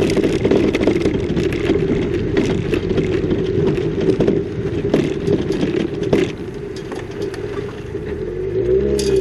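A car's engine running steadily while it drives over a rough road, with frequent knocks and rattles. It gets quieter about six seconds in, and a short rising-and-falling engine note comes near the end.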